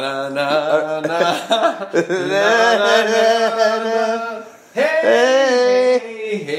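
A man singing in long, drawn-out held notes, loud and wavering, with a short break about four and a half seconds in.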